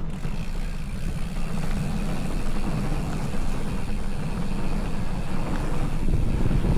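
Wind buffeting the microphone of a bicycle-mounted camera while riding, a steady fluttering rumble with a hiss of moving air and tyre and road noise over it.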